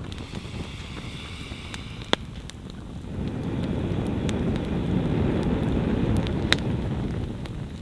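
Breath blown onto a wood campfire: a low rushing whoosh that swells about three seconds in and eases off near the end, with a couple of sharp pops from the burning logs.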